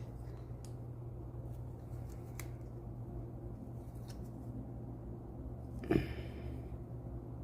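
Small, light clicks and taps from nail-stamping tools, a stamping plate worked with a scraper and stamper, over a steady low electrical hum. A brief, louder sound with some pitch to it comes about six seconds in.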